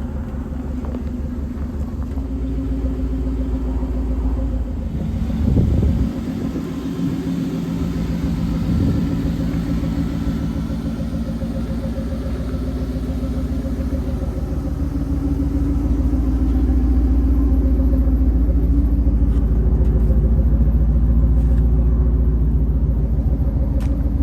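Classic truck's engine running at idle, with a short rev about five seconds in and a smaller one near nine seconds; the low rumble grows louder in the second half.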